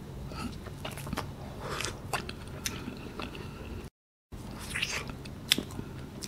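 Close-up biting and chewing of a Cornetto ice cream cone's crisp chocolate wafer, with scattered small crunches and clicks. A brief gap of dead silence falls about two-thirds of the way through.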